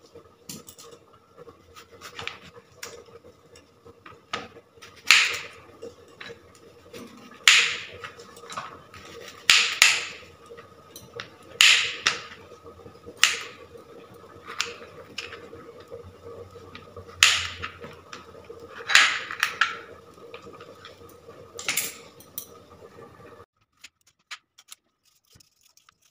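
Kitchen knife chopping through red radishes onto a plastic cutting board: single sharp chops every second or two, over a faint steady hum. The sound cuts off abruptly near the end.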